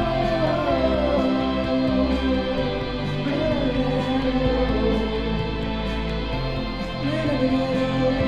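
Music: a slow piece with long held bass notes under a melody that glides up and down.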